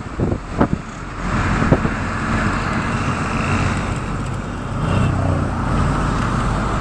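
Running noise of a moving road vehicle heard from inside the cabin: engine hum and tyre and wind rush. A few sharp knocks or rattles come in the first second or so, then the noise settles into a steady rush.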